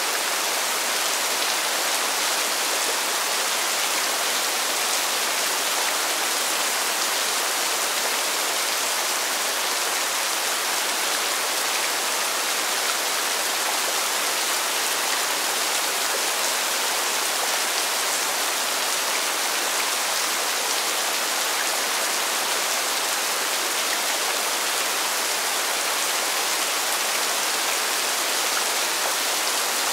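Steady rain falling on pavement, an even hiss that holds without let-up and has little low rumble.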